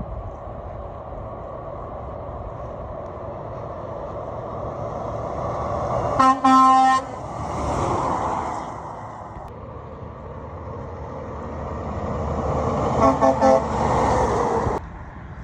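Truck horns honking at passing traffic: one blast of under a second about six seconds in, then three quick toots about thirteen seconds in. Between them, vehicles pass with rising and falling road noise.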